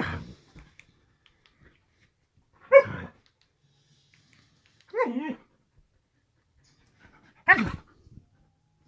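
Huskies playing, one giving four short barks about two and a half seconds apart.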